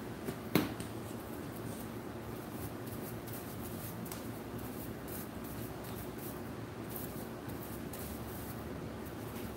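A single sharp click about half a second in, over steady background room noise.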